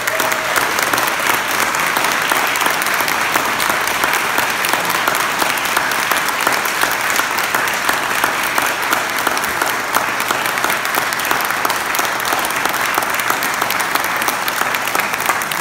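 A roomful of people applauding, a steady, even clapping that goes on without a break.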